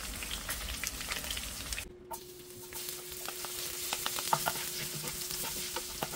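Pork belly pieces sizzling in hot oil in a nonstick pan, with many small pops. After a sudden cut about two seconds in, minced garlic sizzles in the oil as a wooden spatula stirs it, over a faint steady hum.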